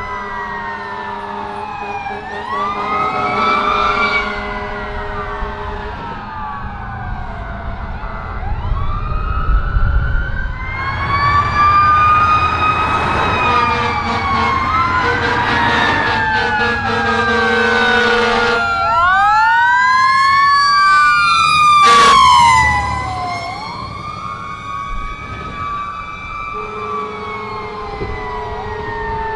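Sirens of two fire trucks, a rescue pumper and a ladder truck, sounding together as they pass, with overlapping wails and fast yelps. Steady low horn tones come and go, and diesel engine rumble swells as a truck goes by.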